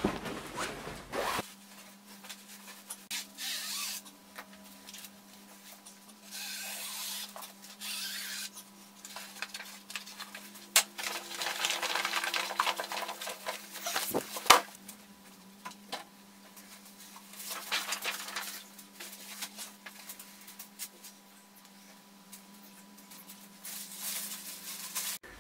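Large crinkly plastic sheet rustling and crackling in irregular bursts as it is spread and handled on the floor, with a few light taps. A steady low hum runs underneath, starting about a second and a half in.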